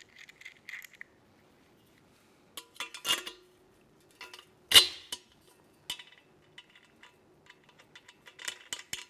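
Metal parts clinking and knocking as a caster wheel's threaded stem is fitted into a metal stand strut, with one sharp clank about five seconds in and a quick run of clicks near the end.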